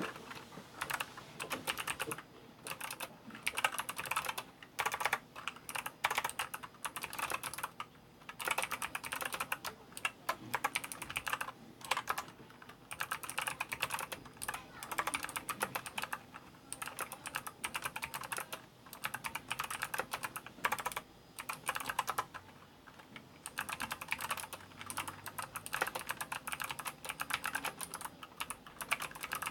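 Typing on an ABKO K660 Special Edition mechanical keyboard with Kailh optical switches: rapid keystrokes clicking in runs, broken by several brief pauses.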